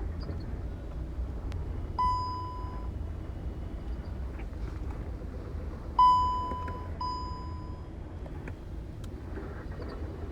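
Volkswagen Virtus/Taigun engine running with a steady low rumble and a few faint light knocks, the metal-to-metal knock of a loose exhaust silencer hanging clamp. Three short beeps, each just under a second, sound about two, six and seven seconds in.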